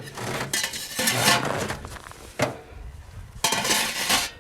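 Metal stove parts being handled and unpacked: rustling and clinking in two bursts, with a single knock between them.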